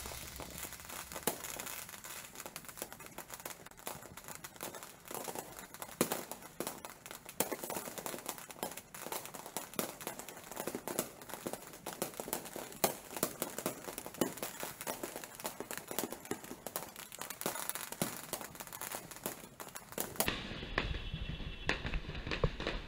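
Fireworks popping and crackling, a stream of irregular sharp pops. Near the end the crackle dulls and a low rumble comes in.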